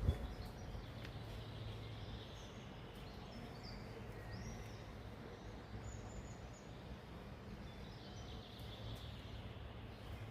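Outdoor ambience: a faint steady background noise with a low hum, and a few short bird chirps around the middle.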